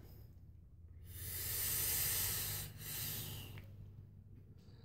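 A person drawing air hard through the atomizer of a mechanical vape mod: a long hissing pull of about two seconds, then a shorter one. The mod's button was not pushed down far enough to fire, so these are dry pulls.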